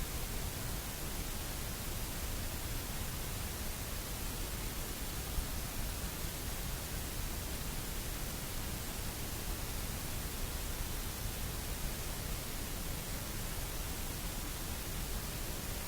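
Steady, even hiss of static noise, with no other sound in it.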